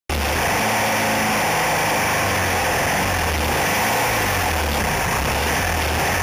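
Engine of a Piranha 850 off-road buggy idling steadily while the buggy stands still, with a low, pulsing rumble.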